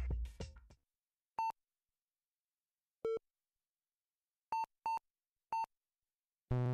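Pong-style video game blips: five short electronic beeps at uneven intervals, the second one lower than the rest, then a short low buzzing tone near the end.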